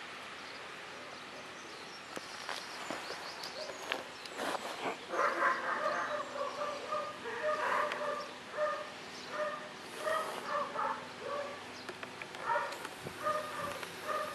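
Puppies whining and squeaking in short, high, repeated cries, beginning about five seconds in, while they scramble over their mother to nurse.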